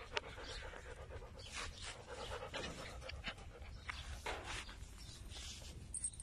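A dog panting with its mouth open: a run of quick, breathy puffs close to the microphone.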